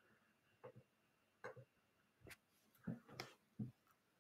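Faint, irregular clicks of a computer mouse, about six over a few seconds, against near silence.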